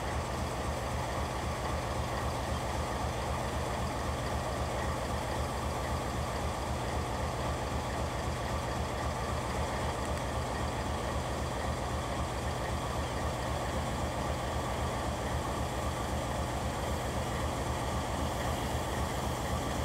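Diesel locomotive engine running steadily at low power as it pulls a passenger train slowly along, with an even low throb.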